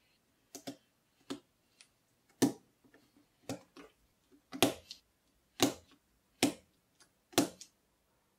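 Hard, sharp clacks of keyboard parts being placed or pressed together, about one a second, eight or so strong ones with a few lighter ticks between.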